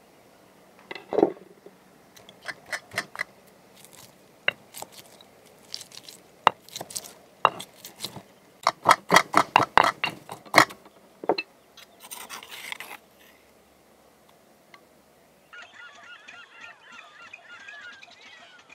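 Stone pestle pounding ginger in a stone mortar: a run of sharp knocks, coming fastest, about three a second, two-thirds of the way through, followed by a second of grinding. Near the end, birds calling.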